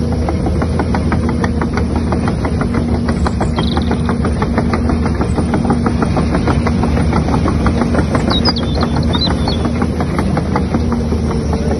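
A radio-controlled construction model runs with a steady electric-motor hum and a fast, even clicking of about five ticks a second from its gears or tracks.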